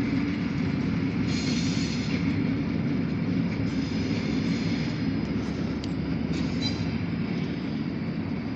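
Diesel locomotives of a light engine move running on the line: a steady low rumble that slowly fades.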